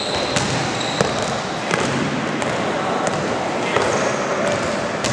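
A basketball being dribbled on an indoor court, with regular bounces against a steady hubbub of the game. Short high sneaker squeaks come near the start and again about a second in.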